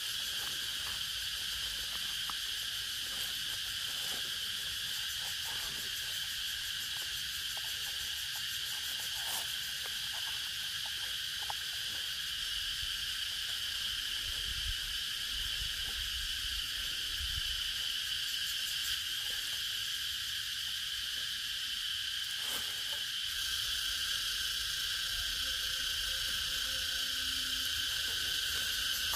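Insects chirring in a steady, high, continuous drone, with a few faint knocks and a brief low rumble about halfway through.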